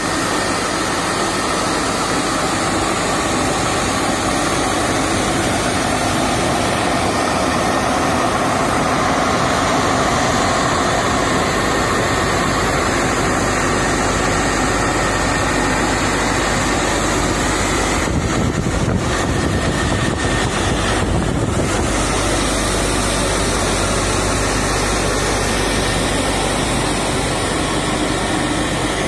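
Electric centrifugal blower running steadily: a loud, even rush of air with a faint motor hum.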